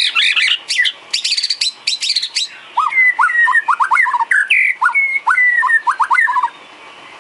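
White-rumped shama singing: a fast run of sharp, tumbling notes for the first couple of seconds, then a string of clear, gliding whistles that stops about six and a half seconds in.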